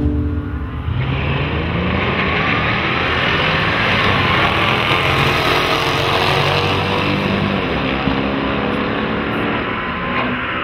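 Pickup trucks drag racing at full throttle: a Ford SVT Lightning and a Dodge Ram SRT-10 launch and accelerate hard down the strip. The engines get loud about a second in and climb in pitch as they pull through the gears.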